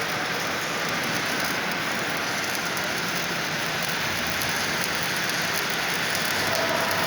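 Electric arc welding: the welding arc crackling and sizzling steadily, like rain or frying, with no break.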